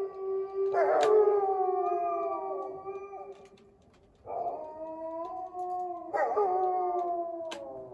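Wolves howling together: long, mournful held notes from at least two overlapping voices, sliding slowly down in pitch, in two bouts with a short break about halfway.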